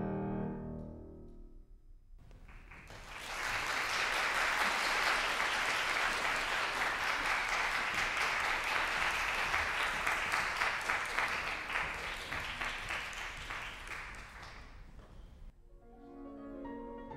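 A grand piano's final chord rings and dies away. About three seconds in, audience applause takes over, dense clapping that fades out after about twelve seconds. Piano playing starts again near the end.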